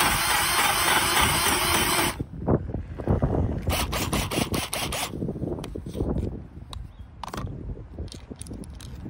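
Cordless drill spinning a cheap hole saw through an old hardwood floorboard, a steady loud cutting sound that stops abruptly about two seconds in. Then a run of sharp clicks and knocks, with a few lighter taps later, as the drill and board are handled.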